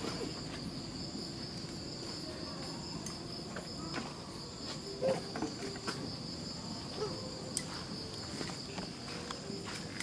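Steady, high-pitched drone of insects (crickets or cicadas), with scattered faint clicks and a brief short sound about five seconds in.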